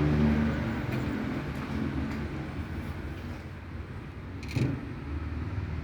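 A car engine running with a steady low hum that fades away over the first couple of seconds and returns near the end, with a single sharp click about four and a half seconds in.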